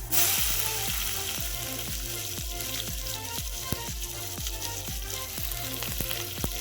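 Finely chopped onion going into hot sesame oil in a kadai: the sizzle jumps up suddenly as it hits the oil, then keeps frying with a steady hiss.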